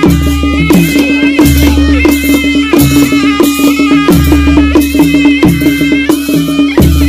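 Nepali panche baja folk music: a wavering reed-pipe melody over a steady held tone, with drums struck on a steady beat of about three strokes every two seconds.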